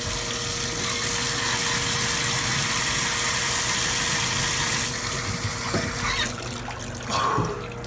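Water from a bathtub faucet pouring onto wet paper towels held over a face: a steady rush of water that weakens about five seconds in.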